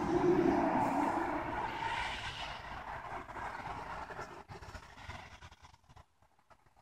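A soft outdoor rushing noise that fades away over about five seconds, nearly silent near the end.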